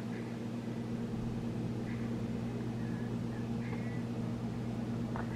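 A steady low mechanical hum that holds one pitch, with a few faint short chirps between about two and four seconds in.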